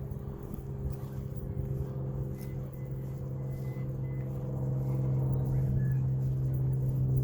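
HobbyZone Sport Cub S2 RC airplane's electric motor and propeller humming at a steady pitch, getting louder over the last few seconds, with wind rumbling on the microphone.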